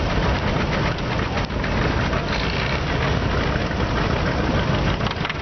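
Antique farm tractor engines running steadily.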